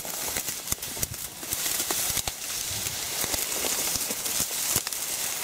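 Tall green weeds and reed stems being pulled and trampled by hand, leaves rustling and stems crackling in many short, irregular clicks.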